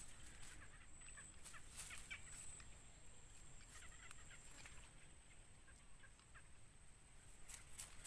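Faint, short chick calls from a downy bittern nestling in its nest: scattered clicky peeps, some dropping in pitch, coming in small clusters with pauses between.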